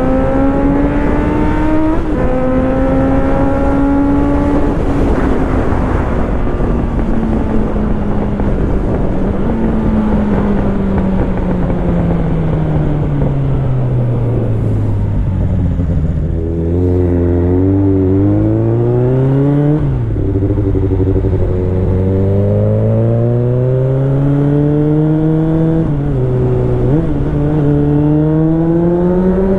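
Suzuki Bandit 600's inline-four engine and exhaust under way. It pulls up through the gears with a short dip in pitch at each upshift, then the note falls away for several seconds as the throttle is rolled off, then it accelerates again with two more upshifts.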